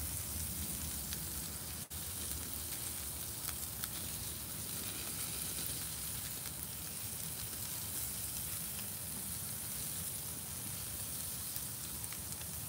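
Pork loin chops sizzling steadily on the grate over a charcoal fire, with a few faint pops. The sound drops out for an instant about two seconds in.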